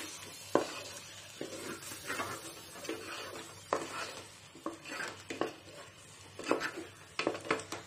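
A spatula stirring thick prawn masala in a large metal pot, knocking and scraping against the pot's sides and bottom at an irregular pace, over a faint sizzle from the pan.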